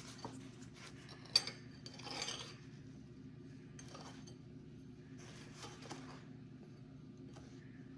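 Soft gritty rubbing and light clinks as a butter-coated donut is rolled in cinnamon sugar in a bowl, with one sharp click about a second and a half in. A low steady hum sits underneath.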